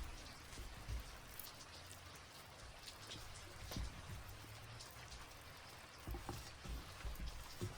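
Rain pattering steadily, with scattered light drops and a few soft low thumps.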